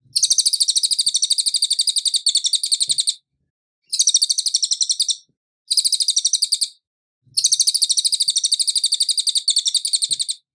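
Cililin singing clear, high, rapid trills in four long bursts separated by short pauses.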